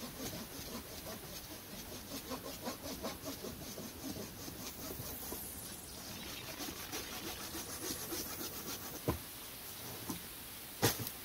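Hand saw cutting through wood in quick, even strokes, about three a second, easing into softer rubbing. A sharp knock comes about nine seconds in and a louder knock near the end.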